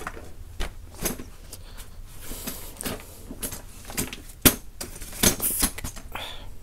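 Folding camping chair being handled: its metal tube frame clicks and clinks and its fabric rustles, in scattered knocks with a sharp click about four and a half seconds in.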